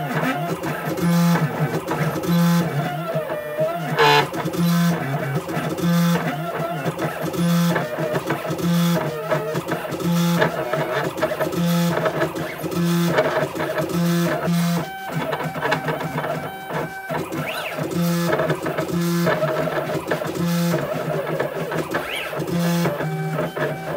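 Stepper motors of a homemade CNC router driving an axis through short, repeated back-and-forth moves that pulse about once a second, while the axis loses about 0.012–0.016 in of position on the test.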